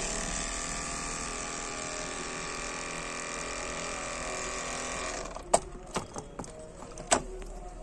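Small electric motor of a solar energy kit spinning a plastic fan, a steady whine that rises slightly as it speeds up. It cuts off about five seconds in, followed by a few sharp clicks.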